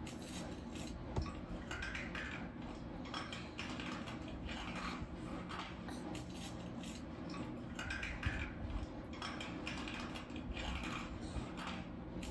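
Eating at a meal: irregular light clinks and taps of utensils against plates and bowls, over a steady low hum.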